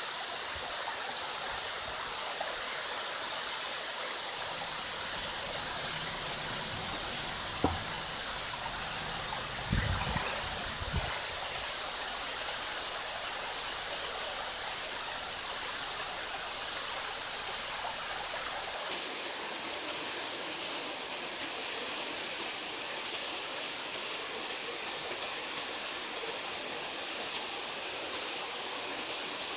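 Steady rush of water falling down a rock face from a waterfall. A sharp click comes about eight seconds in and a few low thumps around ten seconds in. Past the middle the rushing noise loses its highest hiss.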